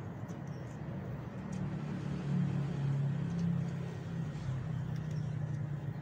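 A low, steady motor hum like a vehicle engine running, growing louder about two seconds in and easing off near the end, with a few faint clicks over it.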